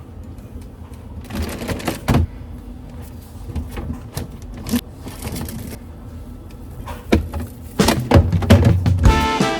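Kitchen knife chopping on a cutting board: irregular sharp knocks. Swing music comes in near the end.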